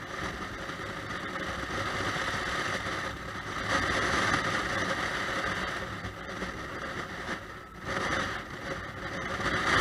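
Honda Shadow VT600 V-twin motorcycle riding along a road, its engine under a steady rush of wind and road noise picked up by a helmet-mounted camera. The noise swells about three and a half seconds in and dips briefly near the end.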